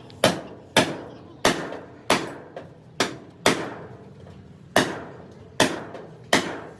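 Hammer blows on car body sheet metal: about nine sharp strikes, each ringing briefly, roughly one every half second to second, with a longer pause around four seconds in. This is typical of panel-beating a crash-damaged panel back into shape.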